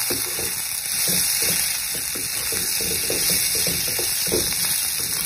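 Pork pieces and sliced onions sizzling in hot oil in a nonstick wok, with a spatula stirring and scraping against the pan in short strokes.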